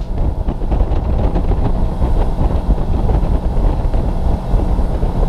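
Fishing boat under way, the wind on the microphone and the running boat making a loud, steady low rumble.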